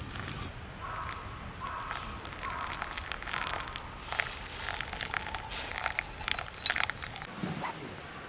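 Hot water poured from a kettle onto ground coffee in a paper filter dripper, splashing and crackling as the wet grounds bubble. The pour stops about seven seconds in, followed by a soft low knock.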